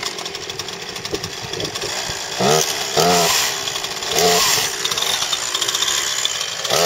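Two-stroke gas chainsaw running at speed with a dense, steady buzz. A few brief voice calls rise over it, near the middle and again at the end.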